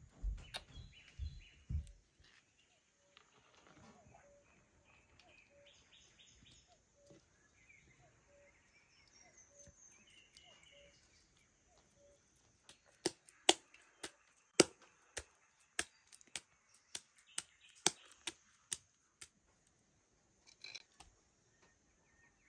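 Hands squeezing and kneading a lump of fresh butter in buttermilk in a clay bowl, with soft wet squelches at first, then a run of sharp wet slaps and clicks about halfway through as the butter is worked by hand. Birds chirp faintly in the background.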